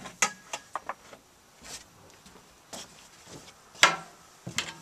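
Handling noise of long-handled deck scrub brushes being picked up and moved: a series of scattered knocks and clicks from the poles, with the loudest, briefly ringing knock just before the end.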